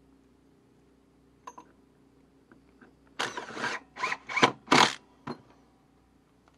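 Cordless drill-driver run in four short bursts, driving a screw back into a small fan's mounting, with a click after the last burst.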